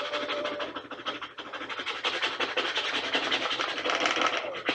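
Squeegee scraped quickly back and forth over a vinyl decal's transfer tape on a plastic beach pail, a fast run of scratchy strokes, burnishing the decal down onto the smooth, waxy plastic.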